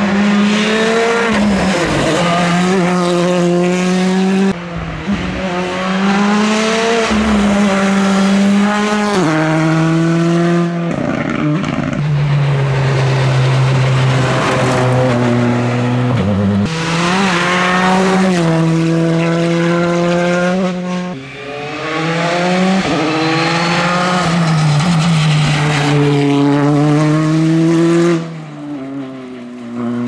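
Rally cars driven flat out on a stage, in several passes one after another. The engine note climbs through each gear, falls sharply at each upshift, and drops again when they brake for corners.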